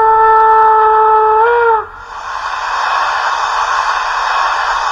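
Model Br 39 steam locomotive's sound unit playing a steam whistle: one long held blast that bends slightly up in pitch and cuts off about two seconds in, followed by a steady steam hiss.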